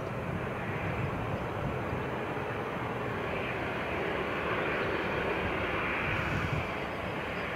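Four-engine jet airliner on landing approach: a steady rush of distant engine noise that grows slightly louder as the plane nears.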